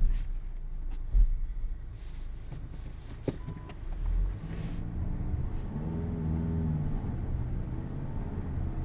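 Car driving on a snowy road: a steady low rumble of engine and road noise, with the engine note rising and then easing off again about halfway through.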